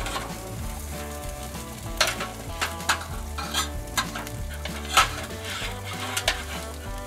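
Metal grill tongs and a spatula clinking against a stainless-steel roasting pan and its wire rack as smoked spare ribs are lifted into it: scattered sharp clinks, several in a few seconds.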